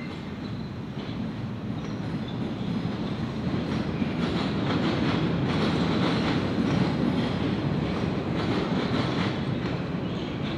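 MBTA subway train passing, its wheels clicking over rail joints; the rumble builds to its loudest about midway through and then eases off.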